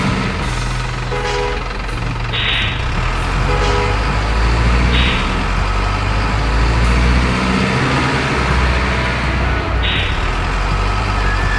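Simulated heavy diesel truck sounds for a miniature model truck: a steady low engine rumble, with a couple of short horn toots in the first few seconds and three brief air-brake hisses.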